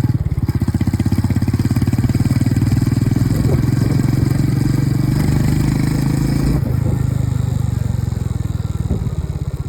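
Royal Enfield Meteor 350's single-cylinder engine running with a rapid, even exhaust beat. About two-thirds of the way in it eases off and grows a little quieter toward the end.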